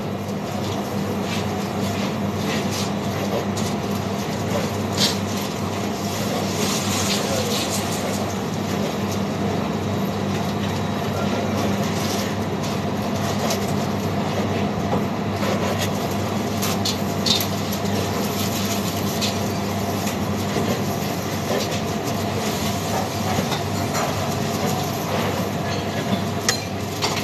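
Steady hum and rush of a commercial kitchen extraction hood, with irregular taps of a chef's knife cutting bread into cubes on a plastic cutting board.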